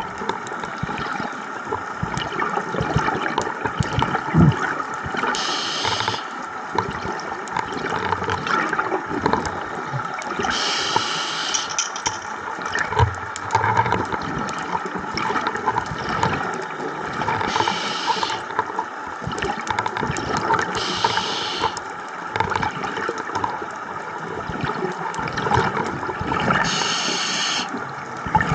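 Scuba diving underwater: steady bubbling and gurgling of water, with a hissing rush of exhaled bubbles from a diver's regulator about every five seconds, five times in all.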